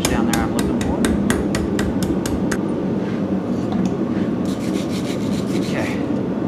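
Hand hammer striking a hot steel bar on the anvil, about four ringing blows a second for some two and a half seconds, drawing the bar out to a point. After a pause, a wire brush scrubs the hot steel for about two seconds, all over a steady low rumble.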